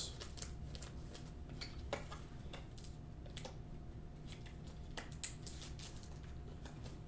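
Faint scattered light clicks and taps, one slightly louder about five seconds in, over a faint steady hum.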